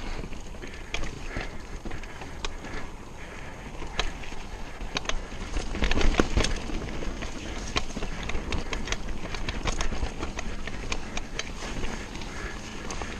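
Mountain bike ridden fast down a dirt trail: a steady rush of tyre and trail noise, with frequent sharp rattles and knocks from the bike over bumps, hardest and most crowded about six seconds in.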